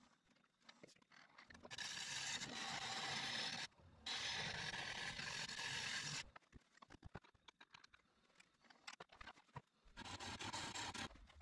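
Turning tool cutting the face of a spinning wooden bowl blank on a wood lathe, a steady scraping hiss in passes: two long cuts in the first half, a stretch of small clicks and knocks, then another short cut near the end.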